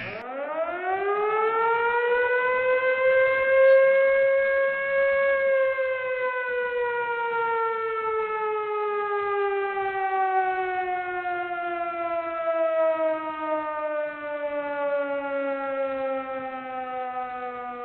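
A siren winding up steeply in pitch over the first four seconds, holding briefly, then sliding slowly down in pitch for the rest.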